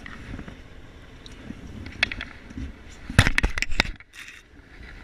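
Sharp knocks, clicks and scrapes of a fish being handled in a plastic bucket, the loudest a quick cluster about three seconds in, over a low rumble of wind and boat.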